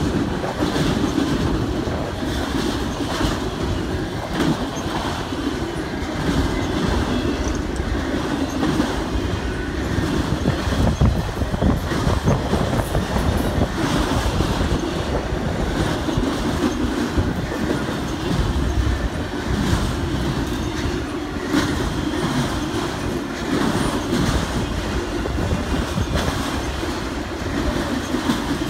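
Freight train of enclosed autorack cars rolling past close by, a steady rumble of steel wheels on rail with repeated clicks and clacks as the trucks cross rail joints.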